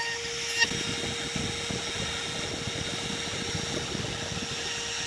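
Electric wood router running at a steady high whine and cutting into a laminated hardwood board, with rough grinding noise from the bit.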